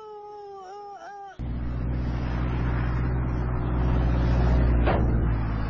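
A wavering, meow-like call, then a sudden loud, steady aircraft engine noise from about a second and a half in as a plane passes very low.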